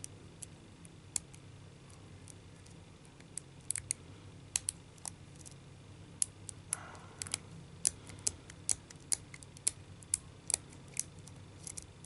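Lock pick clicking against the pin tumblers inside a cheap brass-look Kinzo 30 mm padlock while it is being picked under tension: scattered sharp metal clicks, sparse at first and more frequent after a few seconds, with a short scrape about seven seconds in.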